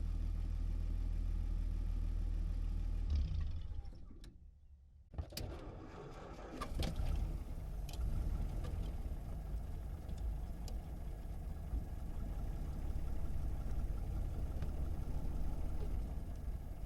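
A 1937 Plymouth's flathead straight-six, heard from inside the cabin, idles steadily and is switched off about three seconds in. About five seconds in, the engine is cranked over and catches, then keeps running at a steady engine note.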